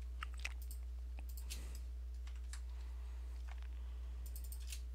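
Computer keyboard keystrokes and clicks, scattered and sparse, with a quick run of keystrokes near the end, as code is copied and pasted in an editor. A steady low hum sits underneath.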